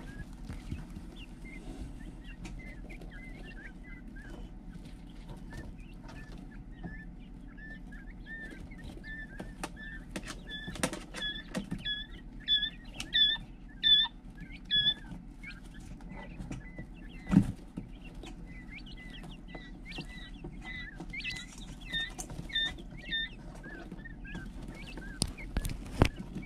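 Young tuxedo quail, a Japanese coturnix colour variety, peeping in short repeated calls. The calls come in runs, loudest around the middle. Scattered sharp taps and a steady low hum run underneath.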